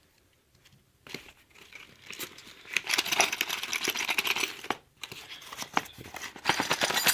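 Plastic packaging crinkling and rustling as accessories are pulled out of a box, with small clicks and taps. It starts about a second in, with a short pause near the middle.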